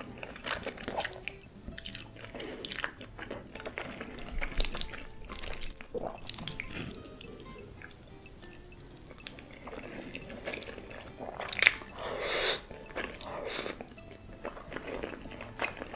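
Close-miked eating sounds of creamy, cheesy pasta being chewed: irregular wet smacks and sticky mouth clicks, with a louder noisy burst about twelve seconds in.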